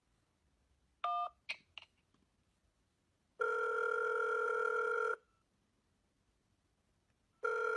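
A short keypad beep through a phone on speaker about a second in, the accept tone for pressing 1, followed by a few faint clicks. Then a phone ringback 'calling' sound effect plays from a laptop's speakers: one ring of about two seconds, and another starting near the end.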